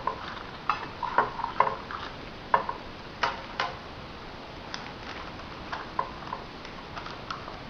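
Scattered light clicks and taps of kitchen utensils and dishes being handled while small cakes are put into paper baking cups, the taps coming more often in the first half.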